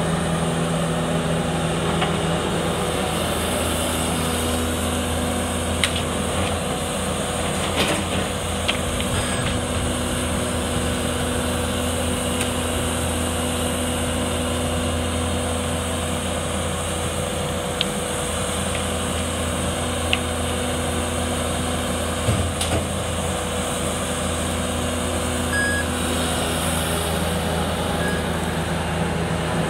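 Diesel engine of a Bobcat skid-steer loader running steadily, a waste truck's engine running with it. A few sharp knocks and clatters of timber and a rake sound over the engine hum.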